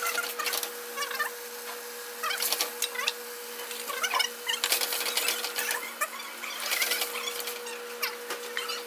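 Vegetables sizzling and crackling in a wok over a gas burner, with a metal spatula scraping and clinking against the pan now and then, over a steady hum.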